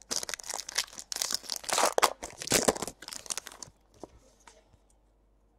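Foil wrapper of a Panini Chronicles baseball card pack being torn open and crinkled in the hands, a dense run of crackling and rustling that thins out after about three and a half seconds into a few faint ticks and then quiet.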